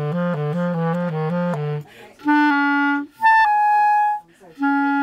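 Yamaha clarinet being play-tested after a full repad. It opens with a quick alternation between two low notes. After a brief pause come a middle note, a short high note a twelfth above it, and a long held middle note near the end.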